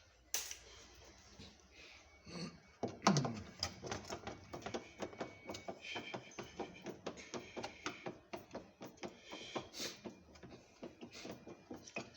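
Parts of a washing machine being handled during disassembly: a knock with a short falling ring about three seconds in, then a long run of rapid clicks and taps.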